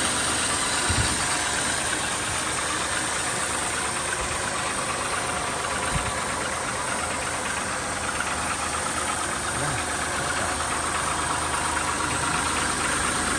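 Car's transverse V6 engine idling steadily on new spark plugs and plug cables, which the owner says now runs pretty good. Two brief soft thumps are heard, about a second in and about six seconds in.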